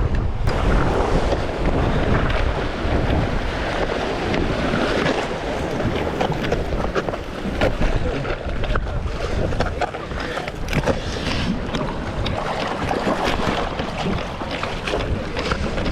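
Wind buffeting the microphone over surf washing against the jetty rocks: a steady rush with a low rumble and scattered small clicks.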